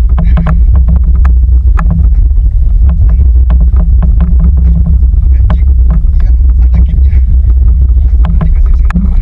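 Small outrigger fishing boat's engine running with a steady low rumble, with irregular short knocks and splashes over it.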